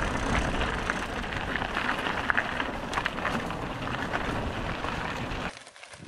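Loaded mountain bike rolling downhill on a gravel track: tyres crunching and crackling over grit under a steady rushing noise. It cuts off abruptly about five and a half seconds in.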